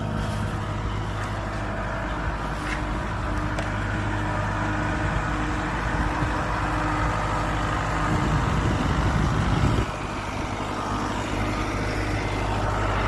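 Tractor engine running steadily. About two-thirds of the way through, a heavier low rumble builds for a couple of seconds, then drops off suddenly.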